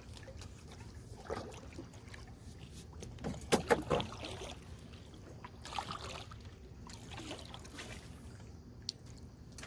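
Knocks and handling noise in a canoe over a steady low rumble, with a loud cluster of sharp knocks about three and a half seconds in and a few softer knocks and rustles spread around it.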